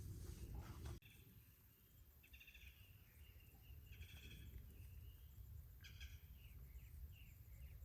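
Faint birdsong: short chirped and trilled phrases every second or two over a low steady background rumble.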